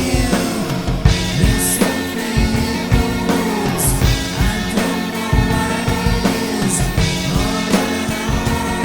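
Rock music with singing and a steady drum beat.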